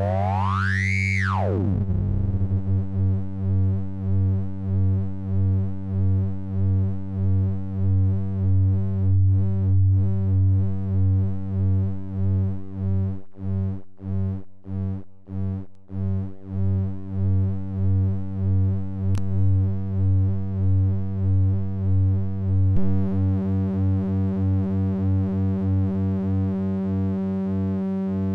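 Low synthesizer tone from a Eurorack oscillator run through the Earwig rectifying mixer, its timbre shifting as the bias and rectification of the waveform are changed. The pitch sweeps up and back down in the first two seconds, then the level swells and dips about once a second through the middle, with a sharp click near the end.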